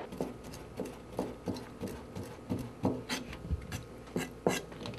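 Kitchen knife chopping raw herring fillets into thin strips on a plastic cutting board: a string of irregular knocks, about three a second.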